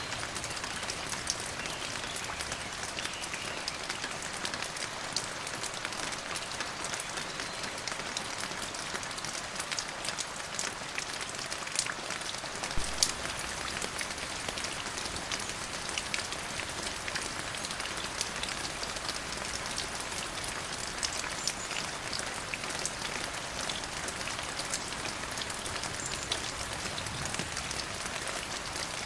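Steady rain falling, an even hiss with many sharp individual drop ticks, and a couple of louder drop hits about thirteen seconds in.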